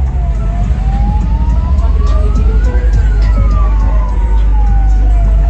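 A siren wailing slowly, rising to its peak about three seconds in and falling away again near the end, over a heavy steady low rumble.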